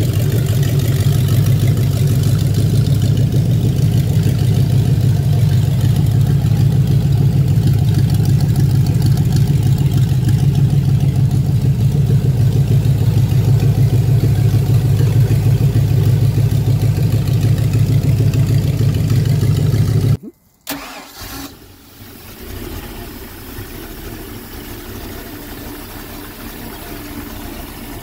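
Freshly rebuilt Mercury 305 small-block Chevy V8 marine engine running steadily on an engine run stand, loud and even. About twenty seconds in the sound cuts off abruptly, and after a short gap a quieter, steady engine sound follows.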